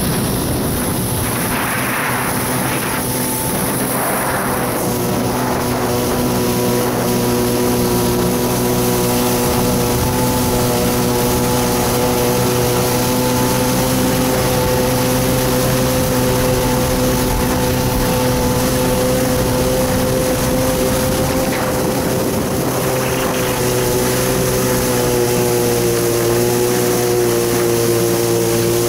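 1993 Kawasaki 650SX stand-up jet ski's two-stroke twin running at a steady cruising throttle: a loud, even engine whine over the rush of water spray off the hull. The pitch eases down a little late on.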